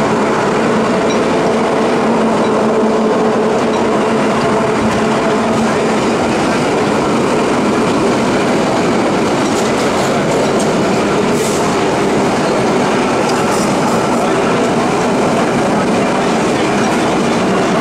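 Vintage subway train running, heard from inside the car: a steady loud rumble and rattle of wheels on the track with a constant hum under it.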